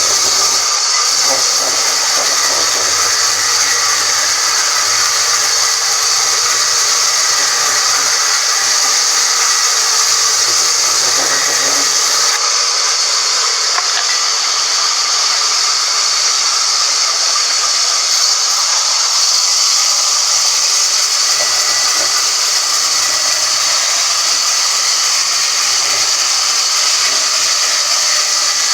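Woodworking machine running steadily: a loud, even hiss with faint steady whining tones in it.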